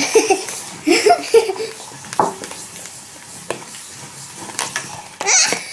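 Spoons stirring glitter glue slime in plastic bowls as it thickens with activator, with a few sharp clicks of a spoon against a bowl. Brief children's vocal sounds near the start and again near the end are the loudest parts.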